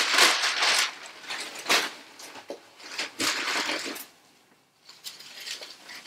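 Tissue paper rustling and crinkling as it is pulled out of a cardboard shipping box, then a bubble-wrapped package crackling as it is lifted out and handled. There is a short pause a little past the middle.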